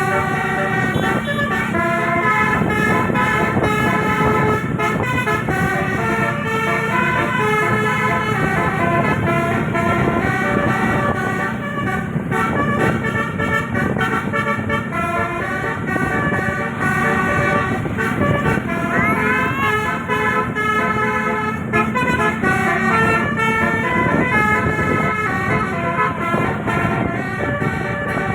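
Bus telolet horn with 18 roof-mounted trumpets playing a continuous run of multi-tone melodies, the notes changing in quick steps, over a low steady rumble.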